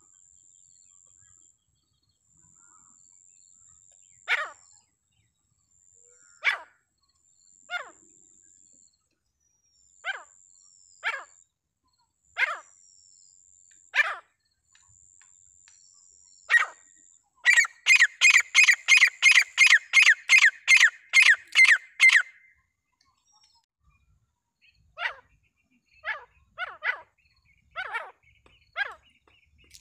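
Francolin (teetar) calling: loud, sharp single falling notes every second or two, then a rapid run of about fourteen calls, about three a second, lasting some five seconds, then single notes again. A thin high steady tone comes and goes through the first half.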